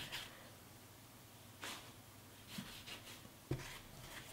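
Faint scraping and soft rustles of a dough scraper cutting through soft bread-roll dough on a floured silicone mat as the dough is pulled apart, with a short knock about three and a half seconds in.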